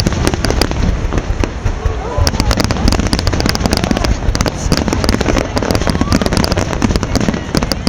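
Fireworks display going off: a dense, continuous run of rapid crackles and sharp bangs over a steady low rumble.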